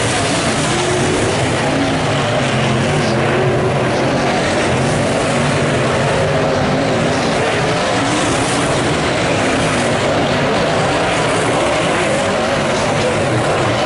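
A pack of late model speedway sedans racing on a dirt oval, several V8 engines running together in a loud, steady din whose pitches waver up and down as the cars pass and circle the track.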